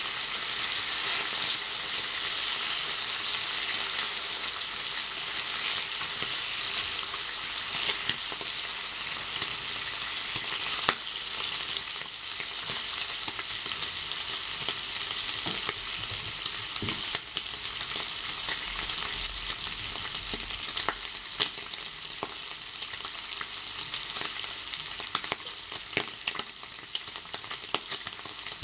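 Super-thin-cut American-style bacon sizzling in a frying pan: a steady hiss full of small crackling pops, a little quieter after about eleven seconds.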